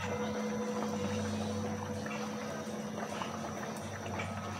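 Mung bean stew bubbling in a wok on a gas stove, over a steady low hum.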